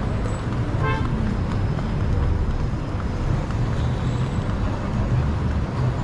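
Steady city street traffic noise, with one short car horn toot about a second in.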